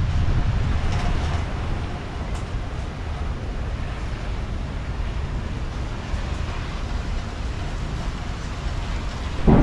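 Storm wind blowing hard and buffeting the microphone, a steady low rumbling rush that rises and falls in gusts.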